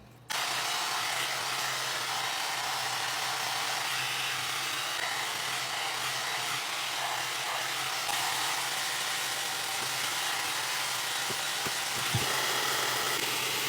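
Hot-air brush hair dryer (a one-step styler) switching on about a third of a second in, then running steadily: an even rush of air over a low motor hum. A brief light knock near the end.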